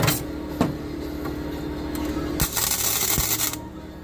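Flux-core wire welder laying a tack weld on floorboard sheet metal: a crackling hiss lasting about a second, after two sharp knocks, over a steady electrical hum.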